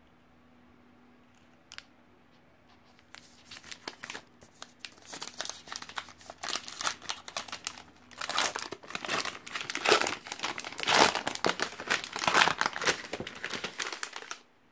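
Chocolate bar wrapper crinkling and tearing as it is unwrapped by hand. It starts about three seconds in, is loudest in the second half, and stops abruptly near the end.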